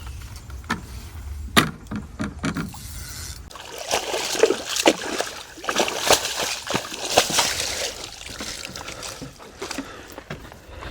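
Hooked mirror carp splashing at the water's surface while being played, in a run of splashes from about four seconds in that lasts several seconds and then dies down.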